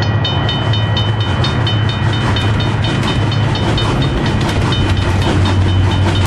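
Green Line express passenger train running by, its wheels clicking over rail joints about four times a second, over a steady low hum.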